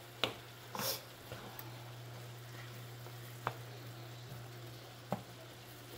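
Ground beef sizzling gently as it browns in a frying pan, stirred with a wooden spoon that knocks against the pan a few times.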